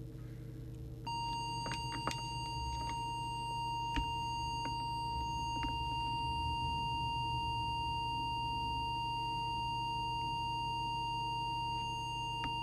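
Steady, pure-sounding audio test tone that switches on about a second in, modulating the CB transmitter for an FM deviation check, over a steady low electrical hum from the bench equipment. A few light clicks sound in the first few seconds.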